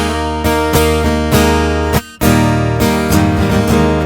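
Instrumental passage of a song: strummed acoustic guitar over a steady bass line, with a brief dip in level about two seconds in.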